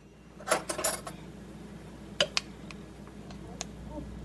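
A spoon knocking against a dish to shake the cheese off it: a handful of separate sharp clinks, a couple close together near the start and a pair about two seconds in.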